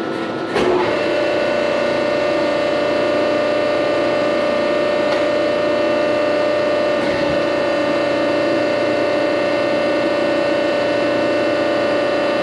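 Hydraulic press brake's pump and motor running with a steady hum. About half a second in it gets louder and a higher steady tone joins it.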